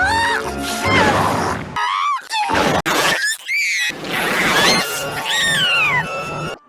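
Cartoon character's sneeze clip distorted by stacked audio effects: several pitch-shifted copies of a voice layered together, with rising and falling squealing glides. The low end cuts out briefly twice, about two and three and a half seconds in.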